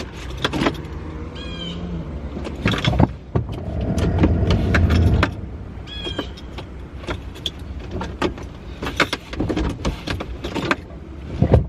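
Clicks, knocks and rattles of hands and tools working on a car, with a brief hum about four seconds in.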